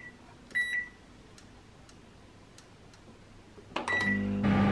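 Microwave oven keypad beeping as its buttons are pressed to set another 30 seconds: a short high beep at the start, another just after, a few soft button clicks, then a last beep about four seconds in as the oven starts. Its low steady hum of the oven running begins right after.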